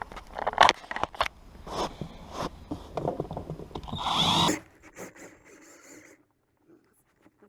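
Clicks and knocks of screws, tools and interior trim being handled, then a half-second run of an electric screwdriver about four seconds in.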